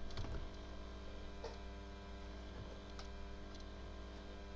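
A few faint, sparse clicks of a glossy card cube model being handled and its tabs folded, over a steady electrical hum.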